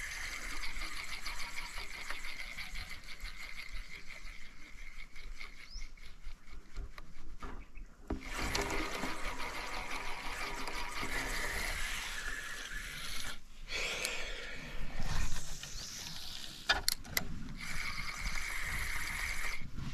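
A steady outdoor chorus of calling animals, a continuous buzzing that cuts out briefly a few times, with a couple of sharp clicks near the end.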